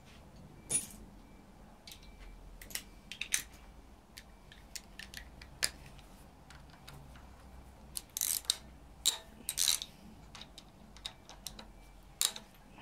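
Irregular metallic clicks and clinks of a ratchet wrench and tools working at the timing-chain sprockets of a BMW M54 engine, the busiest run about eight to ten seconds in.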